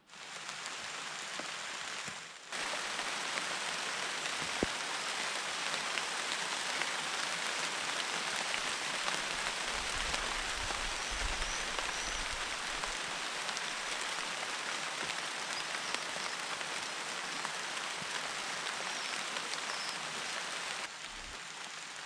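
Steady rain falling on leaves and foliage, an even hiss that starts suddenly and gets louder about two and a half seconds in.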